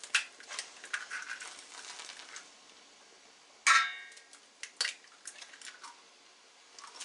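Eggs being cracked on the rim of a stainless steel pot of simmering milk: one sharp ringing knock of shell on metal a little past halfway, with small shell cracks and clicks around it.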